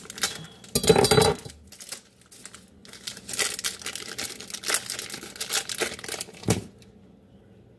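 Plastic pepperoni package being torn open by hand: crinkling and tearing of the plastic wrapper, with a louder burst about a second in and a single knock near the end.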